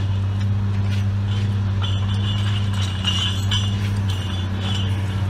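Log Champ LC550 grapple yarder's engine running steadily under load, with intermittent high metallic squealing and clinking from the grapple and its rigging, strongest in the middle.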